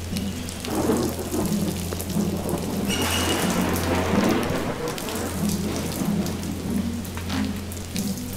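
Heavy rain with rolls of thunder, swelling about a second in and again from about three to five seconds in, over a steady low drone.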